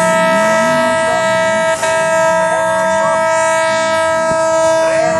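A horn sounding one long, loud, steady note, unchanging in pitch.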